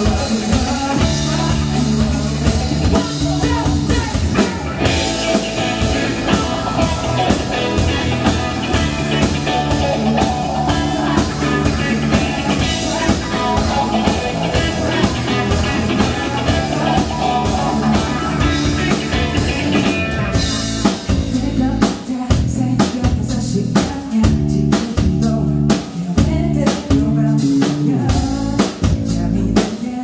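Live band playing a rock song, with guitar, drum kit and singing. About 20 seconds in, the drums turn to sharper, more distinct hits.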